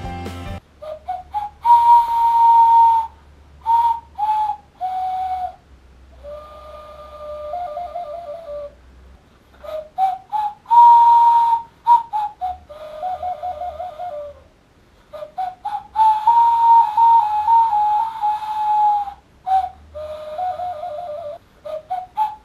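Homemade carrot flute, a hollowed-out carrot with a notched whistle mouthpiece and three finger holes, being blown: breathy, whistle-like notes stepping between a few pitches in short phrases with pauses between them.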